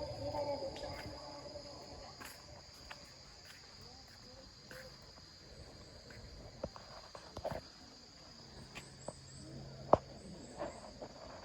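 Insects trilling steadily at a high pitch in autumn parkland, with a few sharp clicks or knocks, the loudest about ten seconds in.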